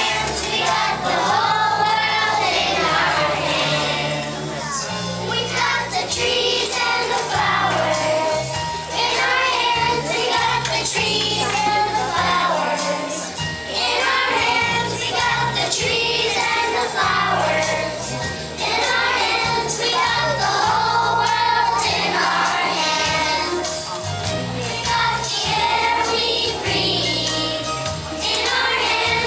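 Group of young children singing a song together in unison, over an instrumental accompaniment with a steady stepping bass line.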